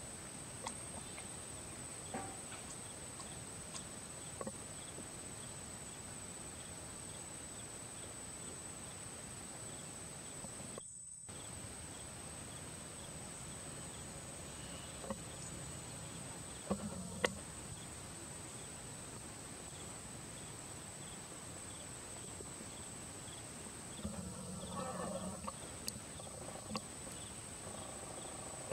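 Forest ambience with a steady high insect drone and faint regular chirps, with scattered light clicks and rustles. The sound cuts out for a moment midway, and near the end a short wavering pitched call is heard.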